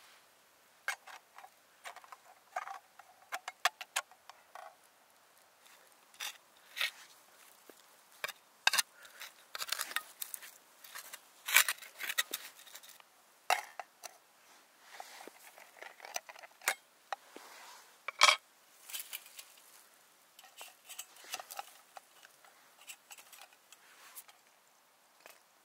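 A run of small clicks, clinks and short scrapes from hands-on camp work. A homemade metal-can alcohol stove with a mesh top and its snuffer lid are handled, a small plastic trowel scrapes through soil and dry leaves, and a thin folding metal stand is set around the stove.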